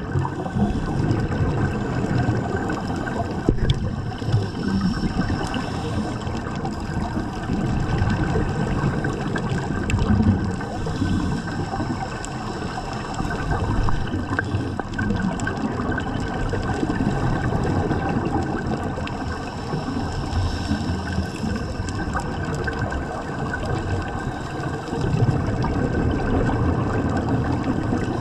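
Underwater noise picked up by a dive camera in its housing: a continuous water rush that swells and eases, with the bubbling of a scuba diver's exhaled breath.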